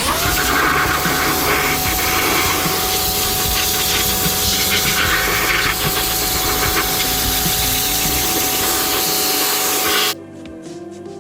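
Power drill with a scouring head spinning against a wheel: a steady motor whine with loud scrubbing and rubbing noise. It cuts off suddenly about ten seconds in, leaving background music.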